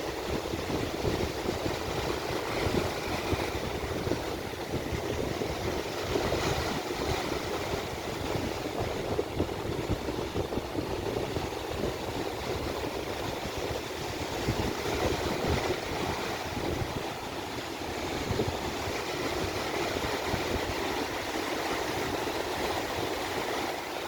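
Sea waves washing onto the beach, a steady rushing noise without distinct breaks.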